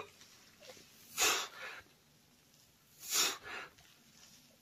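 A man breathing hard through press-ups under a heavy sandbag: two forceful breaths about two seconds apart, one per rep, each followed by a shorter, softer breath.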